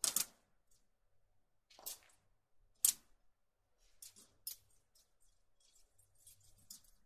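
Small metallic clicks and scrapes of a bolt being fitted by hand into the corner bracket of a steel 19-inch rack frame: separate sharp clicks, the loudest about three seconds in, then a run of lighter ticks near the end.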